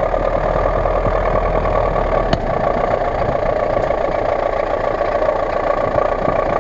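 GAZ-66 truck's V8 petrol engine running steadily at low revs as the truck creeps forward through snow, with a single sharp click about two seconds in.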